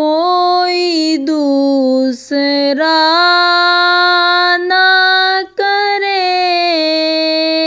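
A naat, an Urdu devotional song, sung by one high voice alone in long, slowly held notes that slide between pitches, with three short breaths between phrases.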